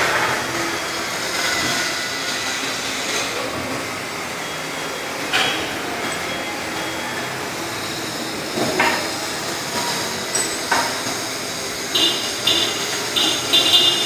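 Heavy-equipment repair work: a steady mechanical background with a few sharp metal knocks, then a run of four or five short high beeps near the end.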